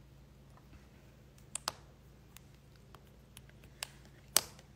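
A few scattered light clicks and taps over quiet room tone, the loudest near the end.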